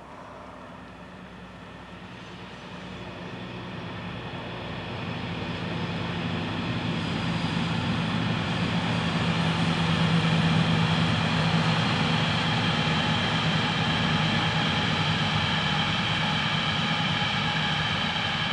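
Freight train of covered hopper wagons rolling past on the rails. It grows louder over the first ten seconds and then holds steady, with a low hum and several high steady tones over the rolling noise.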